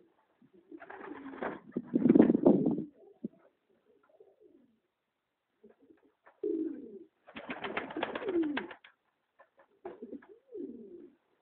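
Domestic pigeons cooing in low, falling phrases, in bouts with short pauses between them. Bursts of broad rustling noise come mixed in with the calls, the loudest about two seconds in.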